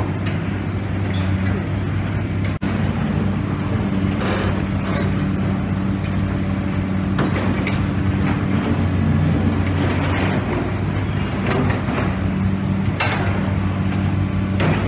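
Demolition excavator's diesel engine running steadily, with scattered crunches and clatter of rubble being broken and moved.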